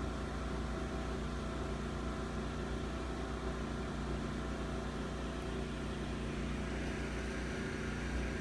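A running machine's steady low hum, with several held tones layered in it and no change in pitch or level.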